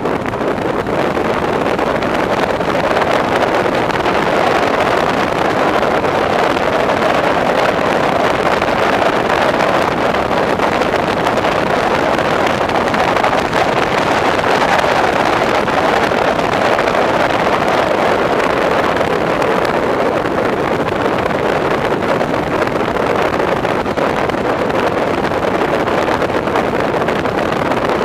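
Steady rushing wind noise on a camera mounted on the outside of a moving BMW Z3 roadster, mixed with the car's driving noise.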